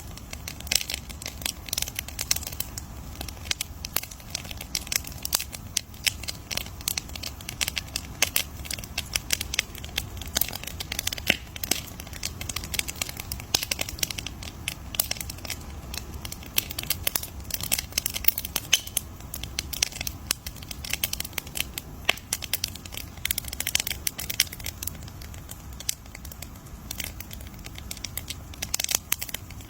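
Wood bonfire crackling: dense, irregular pops and snaps throughout.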